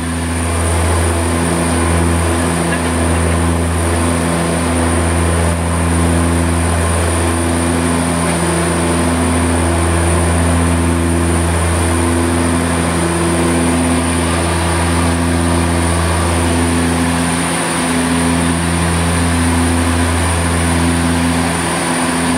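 Cabin sound of a de Havilland Canada DHC-6 Twin Otter in flight: its twin PT6A turboprop engines and propellers give a steady, loud drone. Over it sit a slow, even wavering beat between the two propellers and a thin, steady high turbine whine.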